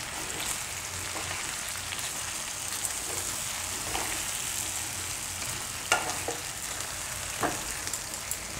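Steady sizzling of potatoes frying in a non-stick kadai as a spatula stirs a thick coconut paste through them. A few sharper knocks of the spatula against the pan, two of them about six and seven and a half seconds in.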